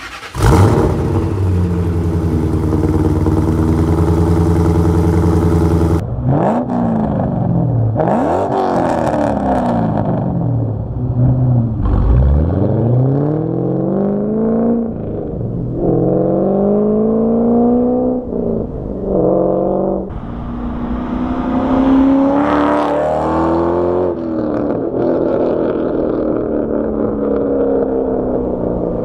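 2006 Ford Mustang GT's supercharged 4.6-litre V8 through long-tube headers, an X-pipe, resonators and home-made muffler deletes. It runs steadily for about six seconds, then accelerates, its pitch rising and falling again and again, with one deep dip about twelve seconds in.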